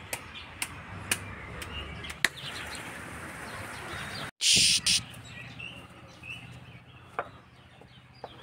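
Raw chicken being pounded on a flat stone for rista, sharp knocks about two a second for the first couple of seconds. About halfway through there is a short, loud burst of noise, and birds chirp faintly near the end.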